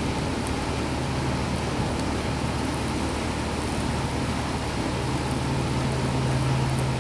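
Steady low hum with an even hiss over it; the hum grows a little louder about five seconds in.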